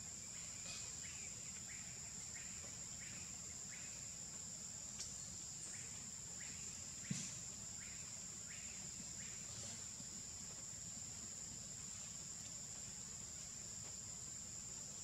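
Insects shrilling in the forest: a steady, high-pitched drone. Over it comes a run of short chirps, roughly two a second, that stops about nine seconds in, and a single sharp click about seven seconds in.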